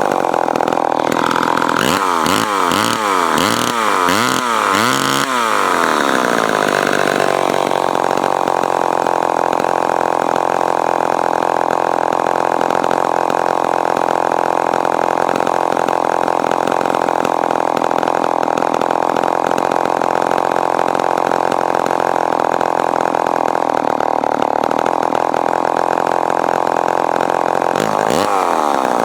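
Remington SL9 two-stroke chainsaw engine running: it is blipped up and down in quick revs about four or five times, then held steady at high speed. Near the end it drops briefly and picks back up.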